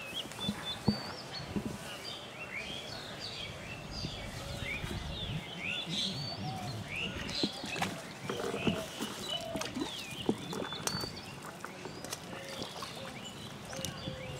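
Birds chirping, many short quick calls overlapping, with a few light taps among them.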